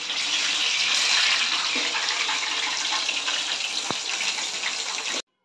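Urad dal vadas (garelu) sizzling steadily as they deep-fry in hot oil in a kadai, cutting off abruptly near the end.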